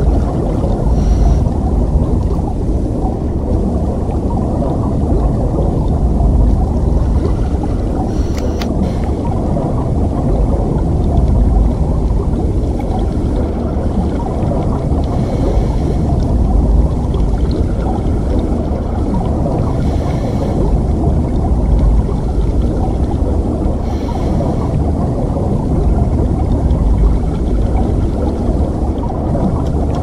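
Underwater ambience: a steady low rumble and wash of water, with faint bubbling every few seconds.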